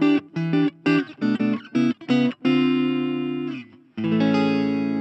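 Suhr Classic Pro electric guitar played through a Blackstar Fly 3 mini amp on a clean tone: a run of short, choppy chords, then a held chord that stops short. A new chord is struck about four seconds in and rings on, slowly fading.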